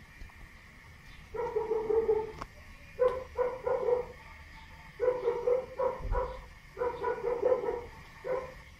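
Plush toy dog's electronic bark: about five runs of short, same-pitched yaps, the first starting about a second and a half in.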